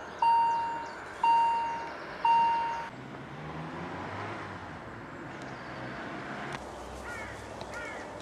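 Railway level-crossing warning bell ringing, single strikes about once a second, each ringing out before the next; it stops abruptly about three seconds in. A low steady hum follows, and a bird chirps a few times near the end.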